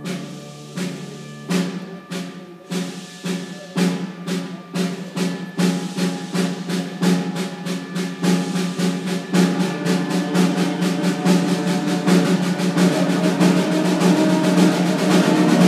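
Junior high concert band playing over a low held note, with drum strokes that start about a second apart and speed up into a fast, even beat as the band grows steadily louder.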